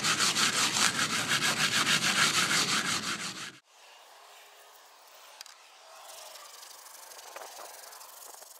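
Stainless steel wool scrubbed hard back and forth over aluminum diamond plate, fast even strokes of about five a second, scouring off rust and tarnish. The scrubbing cuts off suddenly about three and a half seconds in, leaving only a faint hiss.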